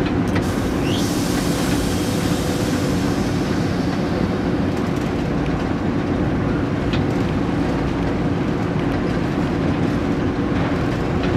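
Steady running noise inside a moving locomotive cab: the engine's drone with the wheels rolling on the rails. A brief rising high squeal comes about a second in.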